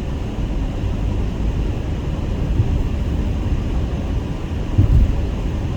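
Car driving on the highway: a steady low rumble of tyres and engine, with a few short low bumps in the second half.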